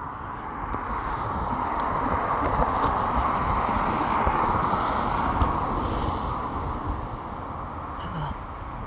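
A vehicle passing on a wet road: tyre hiss swells over a few seconds, peaks mid-way and fades away, with wind on the microphone underneath.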